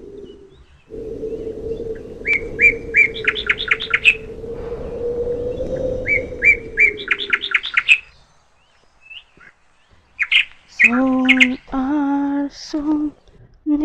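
A songbird singing two phrases of quick repeated high chirps, each speeding up, over a steady hum. After a short lull, a lower pitched, voice-like sound comes in near the end.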